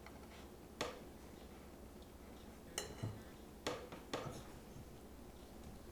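A metal fork clinking and scraping against a ceramic plate while cutting a pancake: about five short, sharp clicks spread over a few seconds, with quiet in between.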